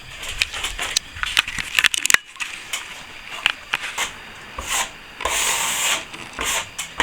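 Plastering trowel working fresh plaster on a plasterboard ceiling, floating it out for the final polish: a run of sharp clicks and taps over the first couple of seconds, then longer hissing scrapes.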